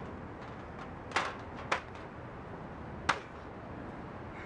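Three sharp smacks as a wrestler strikes his opponent lying on the ground: two close together about a second in, and a third about three seconds in.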